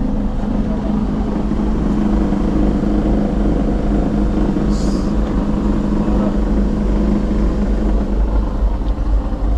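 Diesel engine of a sleeper coach idling steadily, a low rumble with a steady hum; a short hiss about five seconds in.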